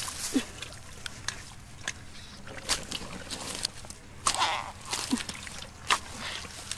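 Rustling and crackling of dry grass and twigs being disturbed, with several sharper crackles.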